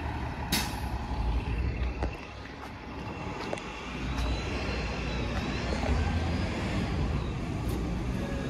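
Outdoor traffic noise: the low rumble of a city bus engine and road vehicles, with a faint whine rising and falling about midway.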